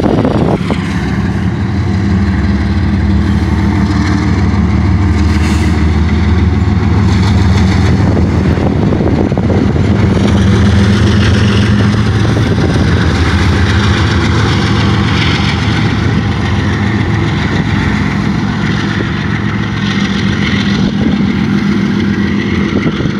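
A double-stack container train rolling past: a steady diesel locomotive engine drone over continuous wheel-and-rail noise.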